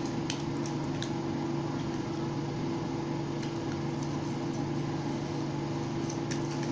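Steady low mechanical hum of room ventilation or air conditioning, with a few faint short clicks near the start and again near the end.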